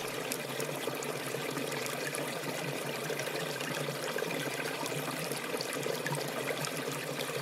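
Small forest stream trickling and babbling steadily over stones, with many small splashes and drips.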